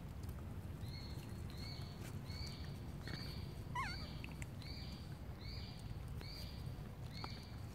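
An animal call repeated steadily, the same short note about every three-quarters of a second, starting about a second in, with one brief rising-and-falling squeak near the middle, over a low steady rumble of outdoor noise.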